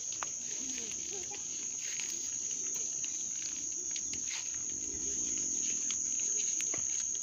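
An insect's steady high-pitched buzz that holds without a break, with faint scattered clicks beneath it.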